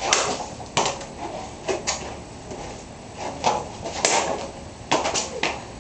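Katana test-cutting a rolled half tatami mat: sharp swishing cuts and dull knocks of mat pieces, several in a row, the loudest right at the start and again about four seconds in.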